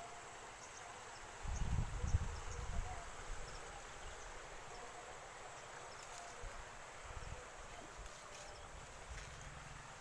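Quiet rural ambience: faint insect chirps and a few short high calls over a steady hiss, with a brief low rumble about one and a half to three seconds in.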